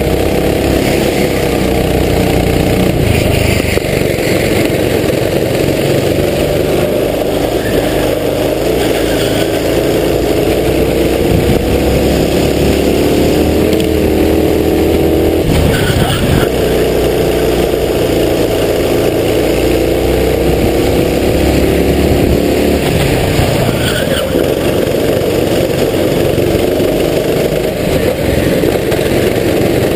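Racing kart engine at speed, heard onboard, its pitch repeatedly climbing as it accelerates and dropping off as it slows.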